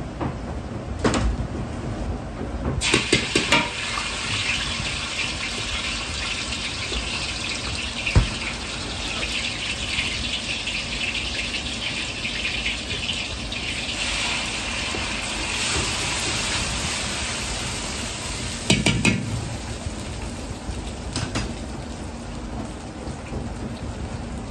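Minced garlic sizzling and frying in hot oil in a wok. A metal ladle clanks against the wok several times, first as the garlic goes in about three seconds in and again near the end.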